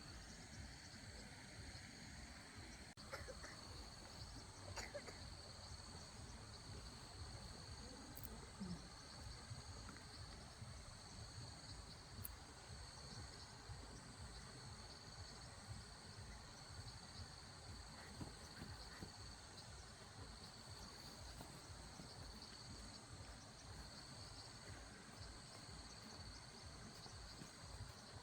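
Faint outdoor ambience: insects chirring in a steady, high, even tone over a low rumble.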